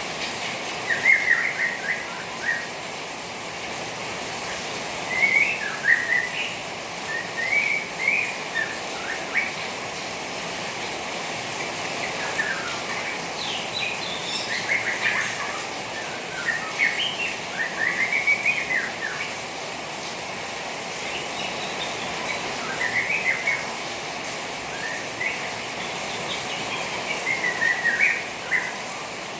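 Juvenile white-rumped shama twittering in short, scattered bursts of quick warbled chirps, over a steady hiss of trickling rainwater.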